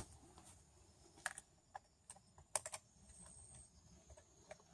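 Faint, scattered clicks and small taps of fingers fitting a wire to a switch terminal on a lithium iron phosphate battery box, about half a dozen over a few seconds, the sharpest near the middle.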